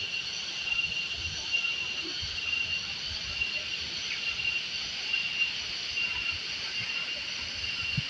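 Insects trilling in a steady, pulsing high pitch, over a constant rush of falling water from the waterfall spout.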